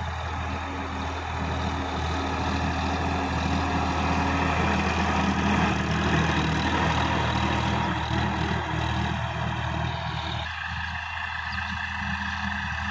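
Sonalika DI-50 RX tractor's diesel engine running steadily while it pulls a rotary tiller through the soil. It grows louder as the tractor comes close about halfway through, then fades as it moves away.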